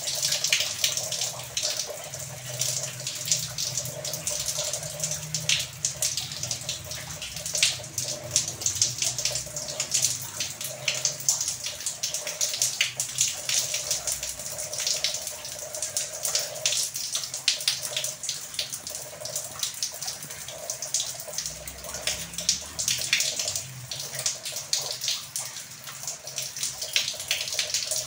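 Heavy, continuous rain falling, dense drops and runoff splashing on a wet paved floor.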